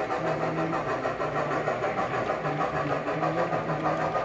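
O gauge model freight train rolling past on the track: a steady rolling rumble and clatter of wheels on the rails.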